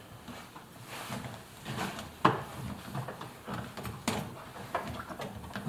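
Irregular knocks, clicks and rubbing as the rubber door seal of an Indesit washing machine is worked by hand onto the lip of the drum opening, with a sharp knock about two seconds in and another about four seconds in.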